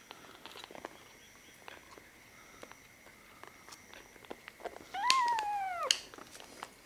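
Kitten meows once, a call just under a second long that rises and then falls in pitch, about five seconds in. Before it, faint small clicks of a plastic feeding syringe being handled.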